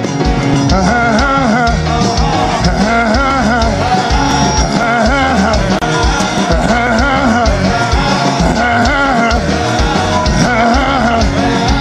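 Live worship band playing music with a steady beat and a wavering melody line.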